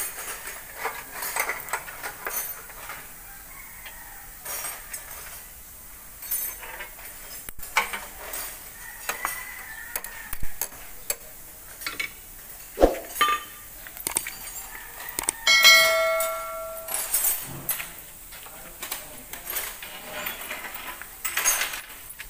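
Steel transmission parts and hand tools clinking and tapping as they are handled in an open truck gearbox case. About two-thirds of the way through, a struck metal part rings briefly like a bell.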